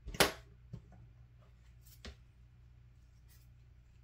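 A sharp knock, then two lighter clicks, one shortly after and one about two seconds in, as small parts or tools are handled and set down on a workbench; a faint steady low hum runs underneath.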